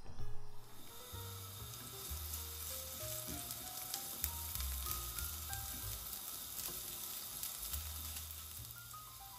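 Minced garlic and ginger slices sizzling in hot oil in a nonstick frying pan as they are stir-fried with a silicone spatula. The sizzle starts about half a second in, under soft background music.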